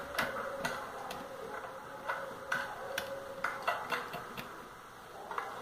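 Irregular sharp clicks and taps, about eight of them unevenly spaced, over a faint steady hum.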